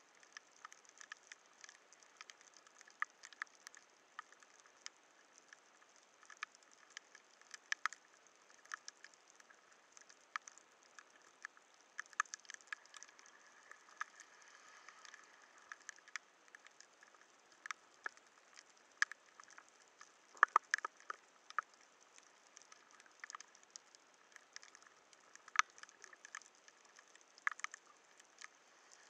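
Underwater reef crackle: faint, scattered sharp clicks, a few a second and irregular, over a steady hiss, with a brief louder cluster of clicks about two thirds of the way through. This is the crackling of snapping shrimp heard through an underwater camera.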